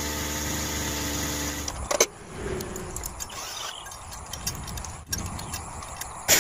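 A radio-controlled model construction machine's motor runs with a steady hum, which cuts off suddenly about two seconds in. After that come quieter handling sounds on the model trailer, with a few sharp clicks.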